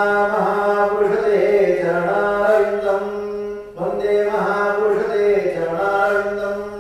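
A man chanting in a slow, melodic recitation, holding long notes in two phrases with a short break between them. The chanting stops just before the end.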